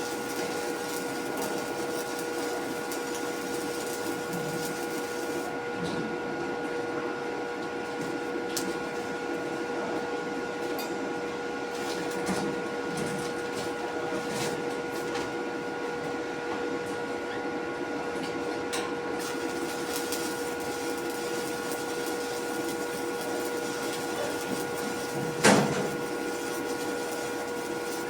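A steady machine hum with a few fixed tones, unbroken throughout, and one sharp knock near the end.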